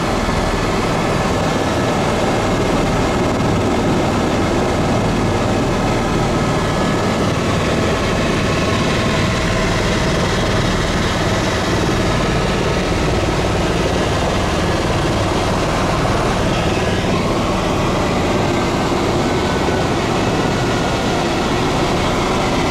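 Helicopter engine and rotor noise heard from inside the cabin in flight, a loud steady drone.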